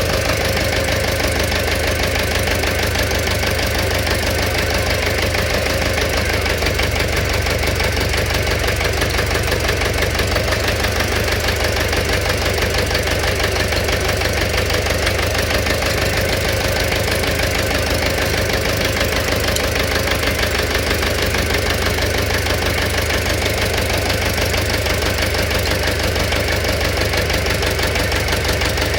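Engine running at a steady speed with a rapid, regular knocking from inside it, the engine knock the owner is showing.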